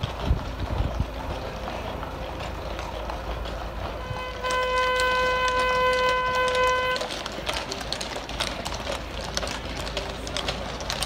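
Hooves of a group of horses clopping at a walk on brick paving. About four seconds in, a horn sounds one steady note for about two and a half seconds, louder than the hooves.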